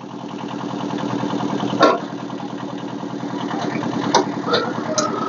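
Kubota engine running steadily under load, its level climbing over the first second and then holding. Three sharp knocks come through it, the loudest about two seconds in.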